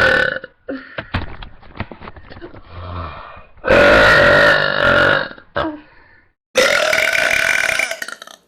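Women belching deliberately. A long burp ends just after the start, and after some quieter clicks two more loud, drawn-out burps follow, each held at a steady pitch for over a second, with a short silence between them.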